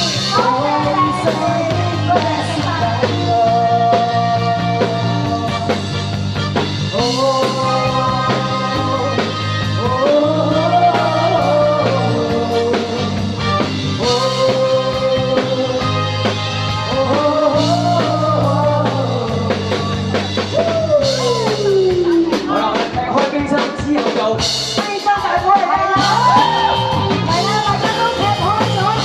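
A song with a lead voice singing over instrumental accompaniment. A little after 20 seconds in, the voice slides down in pitch.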